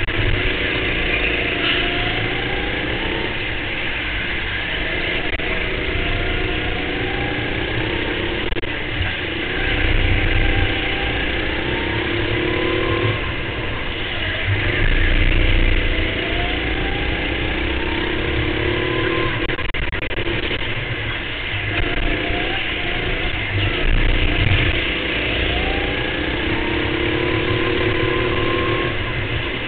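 Go-kart engine heard from the driver's seat during a race lap, its pitch climbing again and again as the kart accelerates out of the corners and falling back into the turns, over a steady rushing noise.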